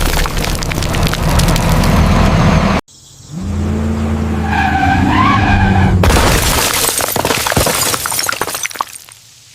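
Heavy truck engine running under dense crackling and crunching as objects are crushed beneath its wheels, broken by abrupt edit cuts. A short squeal comes in the middle, and the sound drops to a quieter engine hum near the end.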